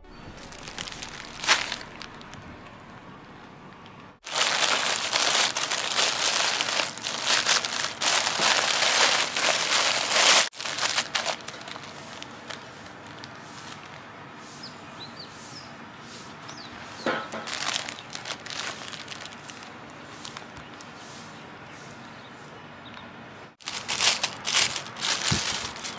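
Plastic packaging crinkling and rustling as items are unwrapped and handled. It comes in two loud stretches, one in the first half and one near the end, with quieter handling between.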